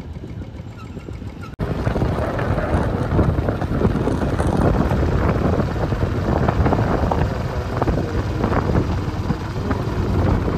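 Motorcycle riding along with wind rushing over the microphone, coming in abruptly about a second and a half in after a quieter stretch.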